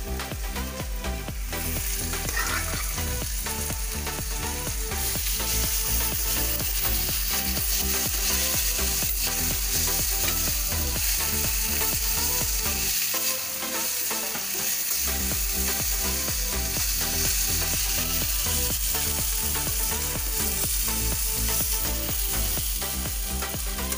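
Oil sizzling in a steel kadhai as boiled dal and spinach are stirred into a spiced tomato tadka, with a steel spoon scraping and clinking against the pan.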